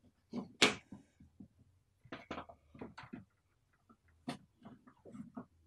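Chalk and a long ruler knocking and scraping against a blackboard as a line is drawn: a run of short, irregular taps and scrapes, the loudest less than a second in.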